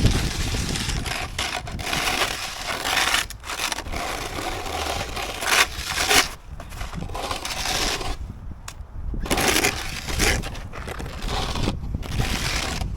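Snow shovel scraping and crunching through snow in a series of strokes, with short pauses between them.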